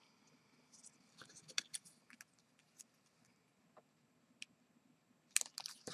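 Faint handling of small pieces of punched card stock: scattered light clicks and paper rustles, with a louder flurry of them near the end.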